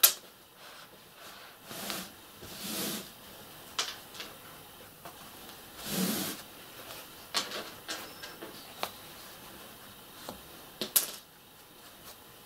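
Hands handling a stuffed fabric toy: cloth rustling and brushing as a long needle and thread are worked through the head, with several small clicks and knocks.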